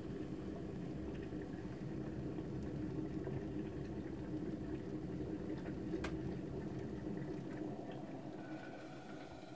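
Water boiling hard in a stainless steel electric kettle. About six seconds in there is one sharp click, the kettle switching itself off at the boil, and after it the boiling slowly dies down.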